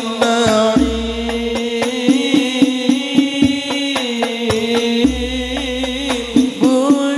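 A man singing an Arabic sholawat into a microphone in long, ornamented held notes, with hand-drum strikes beating a rhythm under the voice.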